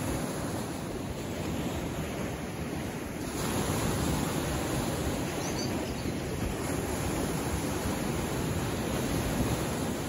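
Small sea waves washing against shoreline rocks: a steady hiss of surf that swells a little louder about three seconds in.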